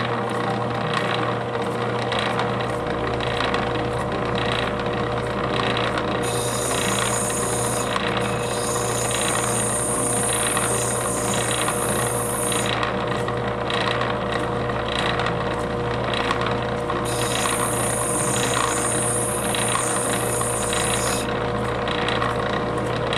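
Lapidary faceting machine running with a steady motor hum and a regular faint ticking from the spinning lap, as a gemstone is cut and polished on it. A higher hiss comes in twice, about six seconds in and again about seventeen seconds in.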